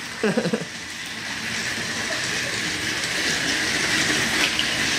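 Motorized Thomas & Friends TrackMaster toy trains running on plastic track: a steady whir of small battery motors and rattle of wheels on the track, growing gradually louder.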